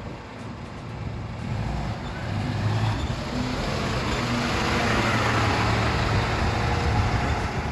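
Motor vehicle running: a steady low hum under a rushing noise that grows louder over the first few seconds, then holds.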